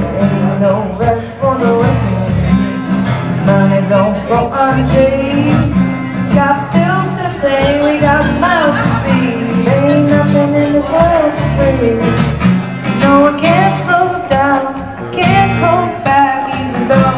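Live acoustic music: a strummed acoustic guitar with a sung melody line over it, held notes that waver without clear words.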